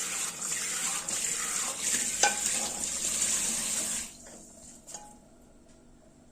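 Kitchen tap running steadily into the sink, with a sharp clink about two seconds in, then shut off abruptly about four seconds in, followed by a couple of light knocks.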